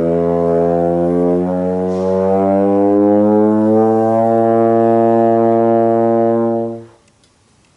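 Trombone holding one long note while the slide is drawn back in, so the pitch glides smoothly upward and then holds. The note stops about seven seconds in.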